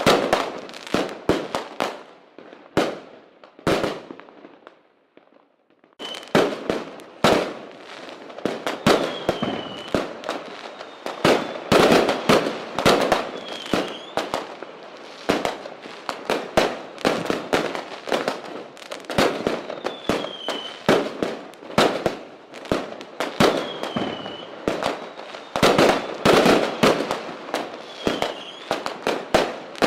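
Many fireworks going off together: a rapid, overlapping run of bangs and crackles from aerial shells and firecrackers. There is a brief lull a few seconds in, then dense firing again, with a short falling whistle heard now and then.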